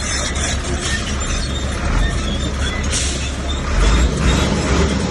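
Komatsu bulldozer's diesel engine running under load, a steady low rumble mixed with scattered clinks and scrapes of stone.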